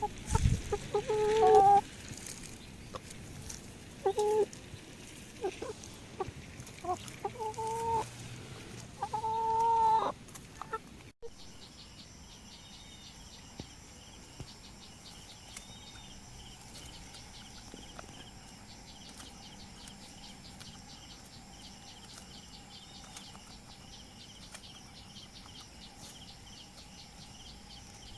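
Chickens clucking and squawking in short, loud calls over the first ten seconds or so. After an abrupt cut it turns to a quieter steady background with fast, faint high ticking.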